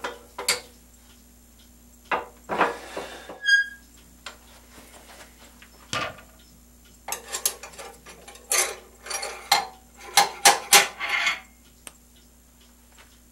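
Metal parts of a wood lathe being handled as a pen mandrel is taken off: irregular clanks, taps and scrapes, with clusters of quick clacks in the second half. There is a short metallic ring about three and a half seconds in, over a faint steady hum.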